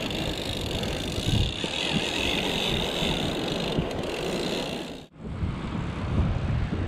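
Overhead fishing reel being cranked, a steady whir from its gears over wind noise. The sound breaks off about five seconds in, leaving wind noise.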